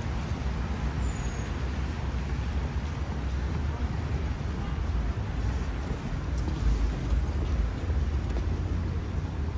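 Steady city traffic noise: road vehicles running past in a continuous low hum, with no single event standing out.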